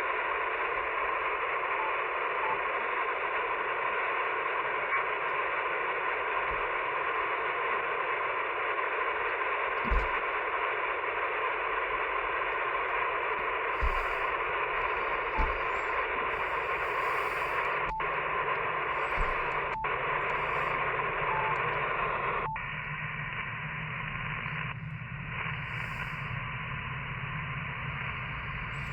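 Static hiss from a Yaesu FTX-1F transceiver's speaker tuned to single sideband with no station coming through. The steady hiss cuts out briefly twice about 18 and 20 seconds in, then turns quieter and slightly narrower about 22 seconds in. A few short low thumps sound near the middle.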